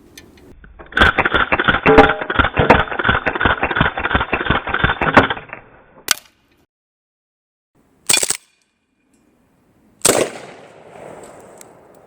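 Umarex Beretta M9A3 .177 CO2 blowback BB pistol firing on full auto: a rapid string of shots lasting about four seconds. Then comes a single click, and later two brief sharp sounds, the second with a fading tail.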